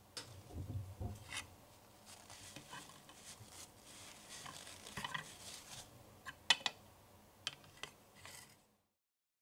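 Faint handling sounds: a paper tissue rustling and small sharp clicks of a tiny toy plate and dishes being moved on a plastic toy tabletop, the loudest click about six and a half seconds in. The sound cuts off near the end.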